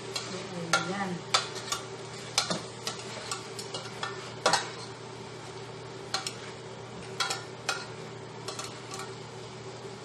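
Metal tongs clinking irregularly against an aluminium pot as pieces of chicken are turned over, over a light sizzle of the chicken and vegetables frying. A steady low hum runs underneath.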